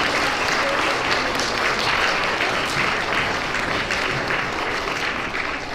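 An assembly audience of young schoolchildren applauding, a dense patter of many hands clapping that begins to fade near the end.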